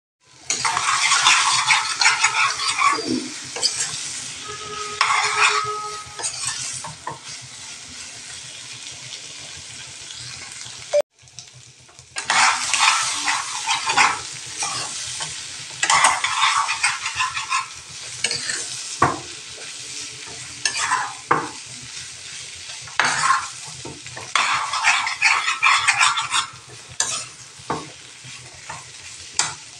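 A metal spoon stirring and scraping prawns around a frying pan as they sizzle, in repeated bursts of scraping over a quieter steady sizzle. It cuts out briefly about eleven seconds in.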